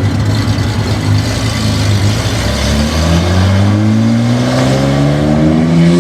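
Nissan Z sports car engine running at a steady low pitch, then rising gradually and smoothly from about halfway as the car accelerates.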